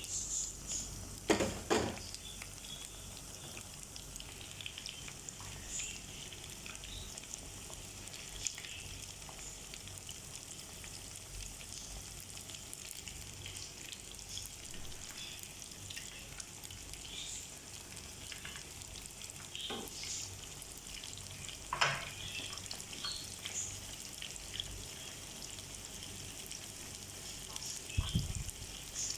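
Chicken nuggets frying in oil over low heat: a steady sizzle with scattered crackles. A few sharp knocks, the loudest about a second and a half in and again near 22 seconds, and a low thump near the end.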